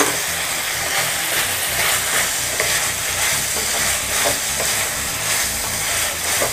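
Mutton pieces frying in oil and masala in a pan, sizzling steadily while a wooden spatula stirs and turns them, with soft scraping. The meat is being dry-fried until the masala dries out.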